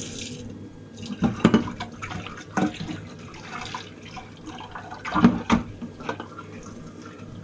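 Kitchen tap running into a small stainless saucepan in a steel sink while the pan is scrubbed with a dish brush, the pan knocking against the sink a few times. A hot water pump runs underneath, a bit loud.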